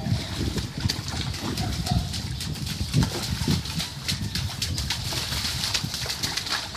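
Small children's rubber rain boots splashing and sloshing through ankle-deep water on a flooded sidewalk, many small splashes in quick succession, over an uneven low rumble.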